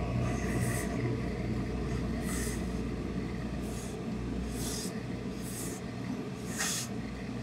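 Hose-fed industrial steam iron pressing fabric, giving about six short hisses of steam over a steady low machine hum.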